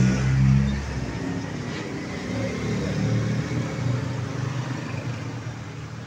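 A motor vehicle engine running and revving, loudest in the first second with a deep rumble, then going on more quietly with its pitch shifting.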